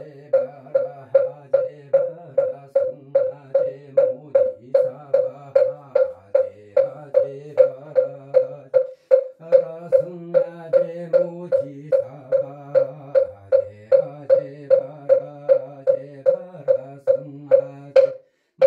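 A man chanting a Buddhist memorial prayer in long, low held notes, with a moktak (wooden fish) struck at an even pace of about two to three knocks a second. The knocks break off briefly about nine seconds in, then resume.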